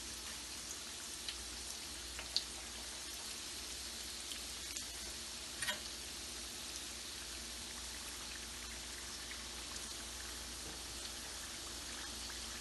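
Samosas deep-frying in hot oil: a steady, even sizzle with a few small pops and crackles.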